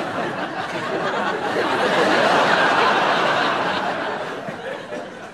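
Studio audience laughing at a sight gag, swelling to a peak about two to three seconds in, then dying away.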